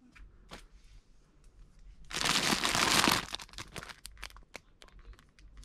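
Crinkling and crackling of something being handled, loudest for about a second starting about two seconds in, with scattered small clicks before and after.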